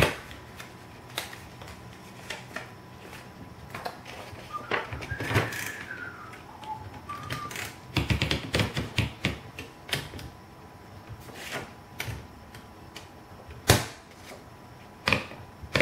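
Royal Companion manual portable typewriter from the 1940s being set up and adjusted: scattered sharp clicks and clacks of its keys and levers, with a quick run of strikes about eight seconds in and a short faint squeak near the middle.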